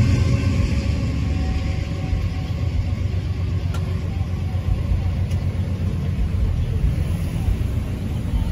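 Low, steady rumble of car engines and traffic as the cars waiting at the crossing idle and begin to pull away.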